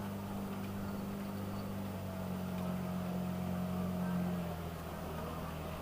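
Motorboat engine running steadily on the water, growing a little louder and shifting in pitch to a peak about four seconds in, then easing off.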